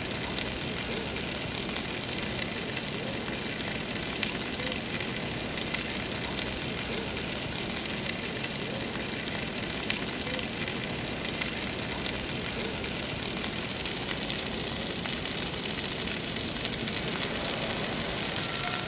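Water spraying from a standpipe and falling like rain onto porous Flexi-Pave pavement: a steady hiss of droplets striking the surface, with faint scattered ticks.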